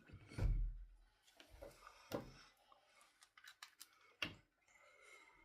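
Handling noise as small objects are picked up and set down: a dull knock about half a second in, a quick run of small clicks in the middle, another knock a little after, and a faint steady hum near the end.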